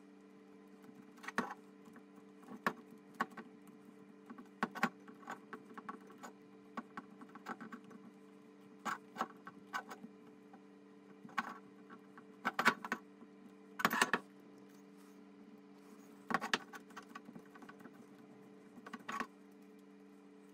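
Gloved hands working mouldable plastic over the aluminium body of a smog pump: irregular soft rustles, taps and clicks as the casing is turned and handled, the loudest a cluster about two-thirds of the way in. A steady low hum runs underneath.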